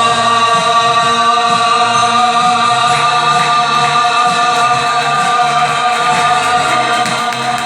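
A man's singing voice holding one long note over the backing music, the closing note of the song.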